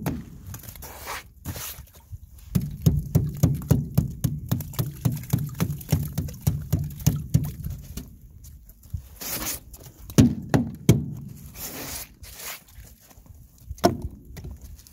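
Metal-bladed scraper chipping freezing-spray ice off an aluminum boat's gunwale: a quick run of knocking strikes, about three a second, then a pause and a few scattered strikes near the end.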